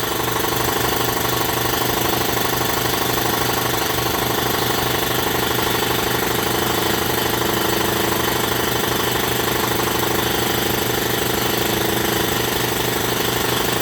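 DeVilbiss Pro 4000 60-gallon, 5 hp twin-piston air compressor running steadily as it pumps up the tank, with a rapid, even pulsing from the pump; not too loud.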